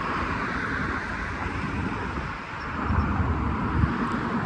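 Steady city street ambience with traffic noise, a low rumble growing about three seconds in.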